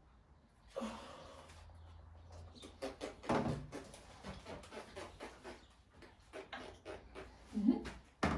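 Light knocks, taps and scraping from objects being handled, starting with a scrape about a second in and then coming thick and irregular from about three seconds in.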